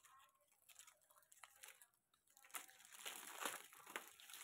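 Faint crinkling of plastic packets and a strip of shampoo sachets being handled, a few scattered crackles at first, then steadier rustling from about halfway through.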